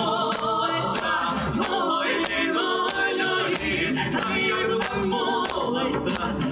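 A folk ensemble singing a song in several voices over a steady percussive beat.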